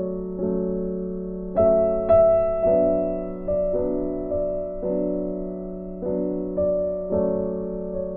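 Background music: a soft piano playing slow, sustained chords, a new chord struck about once a second and fading out before the next.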